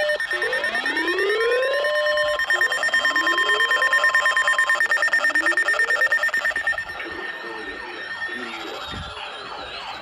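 Electronic alarm sounding: a rising whoop repeated about every second and a half, over steady high tones with a fast pulse. It drops away about seven seconds in, leaving a fainter warbling tone.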